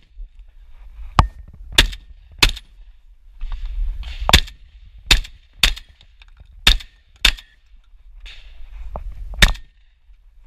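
Shotgun fired from a car's open doorway, about eight loud single shots in quick, uneven succession, mostly well under a second apart, with a couple of fainter sharp cracks between them.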